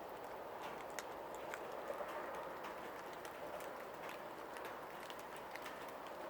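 Steady rain hiss with scattered drops ticking irregularly on hard surfaces.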